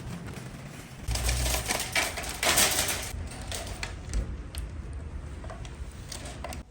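Groceries being handled at a supermarket checkout: a run of rapid clicks, knocks and clatter over rustling, busiest in the first few seconds.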